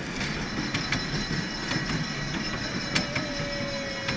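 Miniature ride-on train rolling along its track, with a low rumble and sharp wheel clicks coming every half second or so, loudest about three seconds in. From about three seconds in, a steady tone sounds, slowly falling in pitch.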